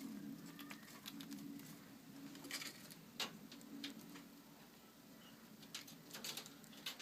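Small squirrel hiccuping: short, sharp clicks at irregular intervals of about half a second to a second, over a faint steady low hum.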